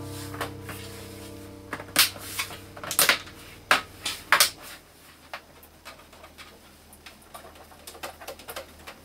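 Plastic rear housing of an LCD monitor being pressed back on, its snap-fit clips clicking into place: a few loud, sharp clicks about two to four seconds in, then lighter clicks and taps.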